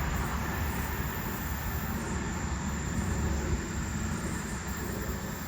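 Steady outdoor noise: a low rumble with an even hiss, as of light rain and wind.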